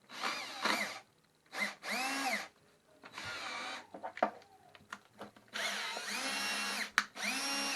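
DeWalt 20V cordless drill run in a series of short trigger pulls, the motor spinning up and winding down each time, with a few clicks in between. It is stuck in first gear, which the owner puts down to a part not seated in the right place after reassembly.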